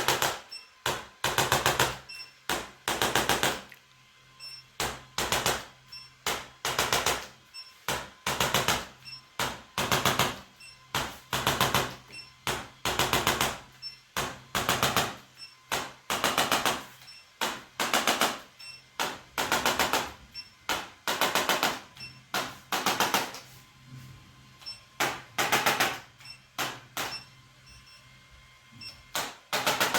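Rapid percussive massage on a patient's body: short bursts of very fast tapping, each about half a second long, coming roughly once a second, over a faint steady hum.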